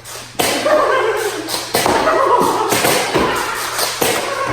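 Raised voices with a handful of sharp thumps and taps among them.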